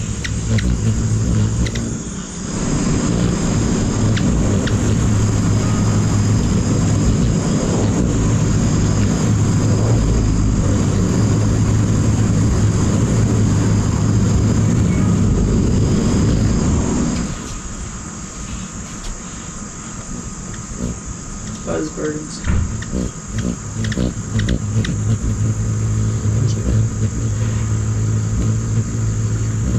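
Ruby-throated hummingbird's wings humming as it hovers at a feeder, a low steady hum. The hum fades for a few seconds past the middle, where a few light clicks are heard, then returns.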